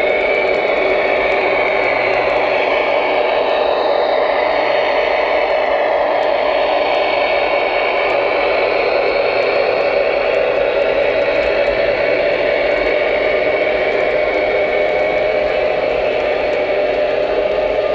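Lionel O-gauge Union Pacific Veranda turbine model train rolling past on its track: a steady rumbling hum of motors and wheels with a thin high whine that rises just at the start and then holds, and faint ticking from the wheels over the track.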